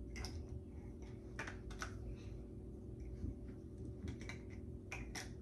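Large plastic toy building blocks clicking and knocking together as they are handled and pressed onto a tower: a handful of irregular sharp clicks, over a steady low hum.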